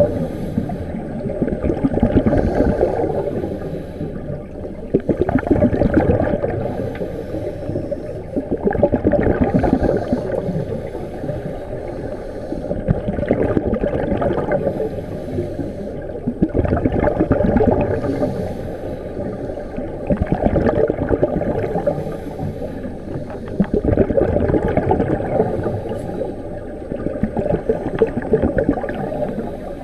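Scuba regulator exhaust bubbles heard underwater: a gurgling rush of exhaled air that swells about every four seconds, breath by breath, over a continuous bubbling hiss.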